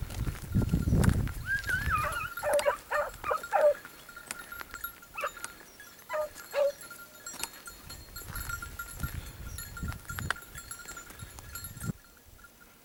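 Distant scent hounds baying and yelping on the trail of a hare, in short calls clustered a couple of seconds in and again around six seconds in. A low rumble sounds in the first second.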